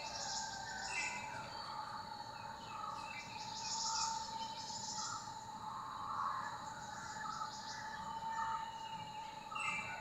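Small songbirds chirping and calling, short notes repeating about every second, over a steady thin high whine.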